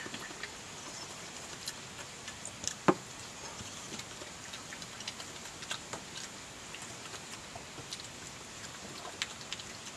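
European badger eating chips: irregular soft clicks and smacks of chewing and snuffling at the food, with one louder click about three seconds in, over a steady hiss.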